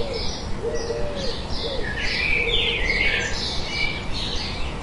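Forest birdsong: many quick high chirps and sweeps from songbirds, and in the first two seconds a lower dove-like cooing call repeating. Underneath runs the steady low rush of a forest stream.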